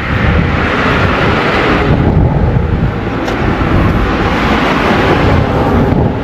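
Loud, gusting rumble of wind buffeting the microphone, with a rushing noise that swells and eases a couple of times.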